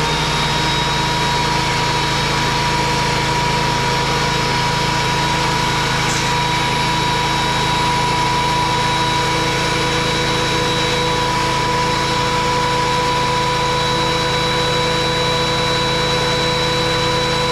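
Benchtop thickness planer's motor and cutterhead running steadily at full speed, a loud constant whine with no change in pitch.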